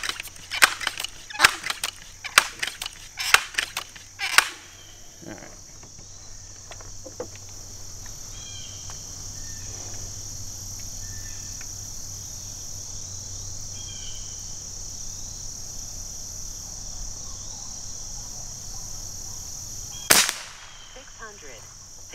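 Benjamin 392S .22 multi-pump pneumatic air rifle being pumped: a quick run of sharp clacking strokes over the first four seconds or so. Then a steady high insect buzz, and about twenty seconds in a single sharp crack as the rifle fires.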